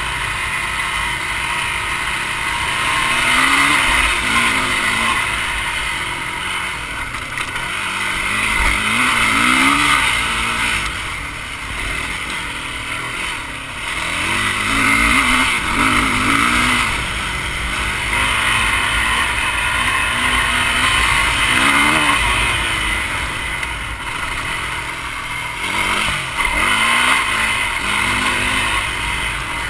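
Yamaha dirt bike engine under way on a dirt trail, revving up and down again and again as the throttle is worked and gears change, with wind rushing over the helmet-mounted microphone.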